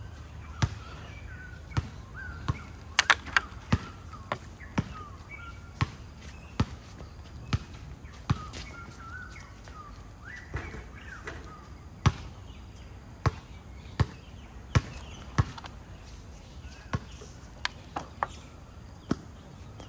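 Basketballs bouncing on a court: sharp thuds at irregular intervals, roughly one a second, with a quick cluster of several about three seconds in. Faint short squeaks or distant calls come between the bounces.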